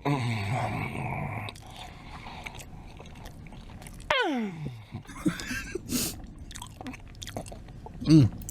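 A person chewing food loudly with the mouth open: many wet smacks and small crunches. About four seconds in, a falling 'mmm'-like hum of the voice.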